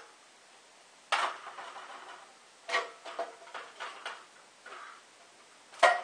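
Galvanized sheet-metal duct pieces of a homemade heater clanking and scraping as they are lifted and set down on a metal table: a sharp clank about a second in, a quick run of clatters around three to four seconds, and the loudest clank near the end.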